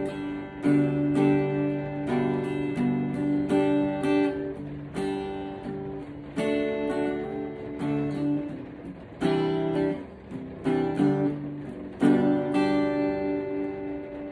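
Acoustic guitar strummed in chords, each strum ringing and fading before the next.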